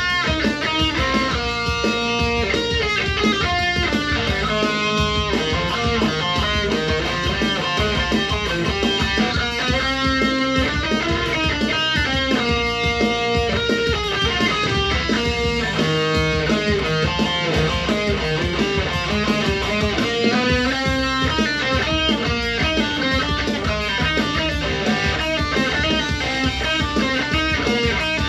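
Jackson electric guitar playing heavy-metal riffs and melodic lines, with drums underneath from a backing track.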